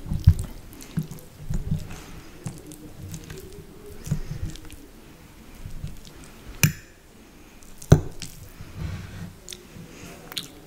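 A metal fork cutting and pressing through the soft, sauced layers of a lasagna bolognese, with soft squishy sounds and low thuds. Partway through, the fork clicks sharply against the plate twice, about a second apart.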